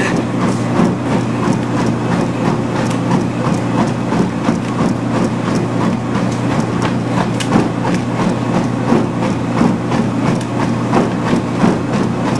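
Treadmill running at speed 10 with a steady motor hum, and running footfalls striking the belt about three times a second.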